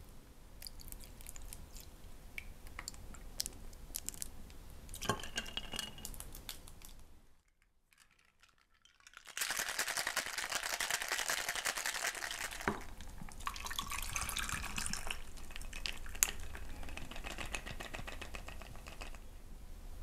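Metal cocktail shaker with ice shaken hard, the ice rattling fast against the tin for about six seconds from the middle on. Before it come small clinks and a pour of lime juice from a jigger into the tin.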